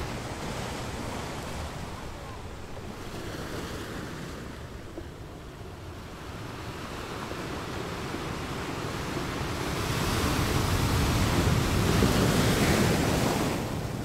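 Sea waves washing in, with one surge that swells through the second half and falls away just before the end.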